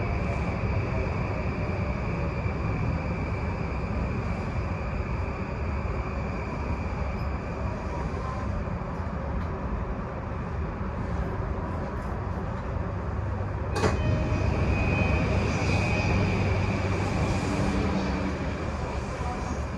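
Inside a JR East E235-1000 series electric train, a steady running rumble as the train slows to a stop. About fourteen seconds in there is one sharp click, after which the sound gets a little louder, with a faint high tone.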